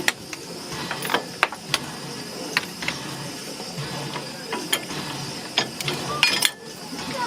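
Irregular metallic clicks and clanks over a faint steady hiss, with a brief cluster of sharper clanks near the end.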